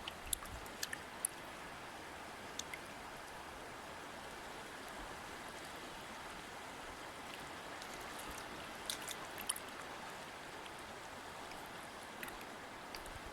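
River water flowing steadily, with small sharp splashes and drips here and there, a cluster of them about nine seconds in.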